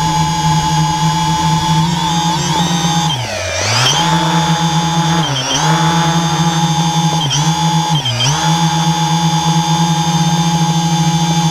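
Electric motors and propellers of a camera drone in flight, heard from on board as a loud, steady whine. About three seconds in, and three more times after, the pitch drops sharply and climbs back: the throttle is briefly eased.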